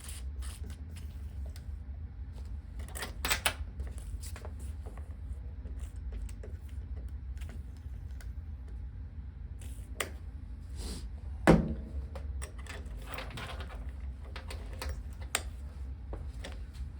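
Scattered clicks, taps and a few short hisses: lubricant spray being applied to the Jaguar XJ's stuck fuel filler lid and the lid being worked by hand. One sharper knock comes about eleven and a half seconds in, over a steady low hum.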